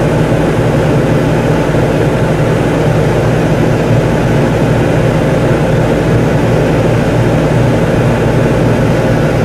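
Whynter ARC-14SH 14,000 BTU dual-hose portable air conditioner running steadily in cooling mode with the fan on full and the compressor running: an even rush of fan air over a steady low hum.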